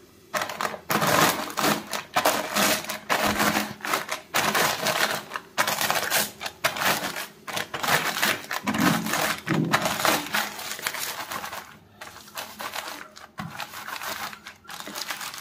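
Kurkure corn puff snacks crunching and crackling inside their sealed plastic packet as a wooden rolling pin is pressed and rolled over it to crush them, in dense irregular bursts with a couple of brief pauses.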